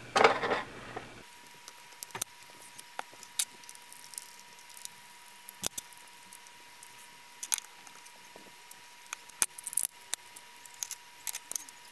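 Scattered small clicks and taps of a small screwdriver and a cheap plastic battery charger's case being handled and prised apart, with a louder scrape in the first second.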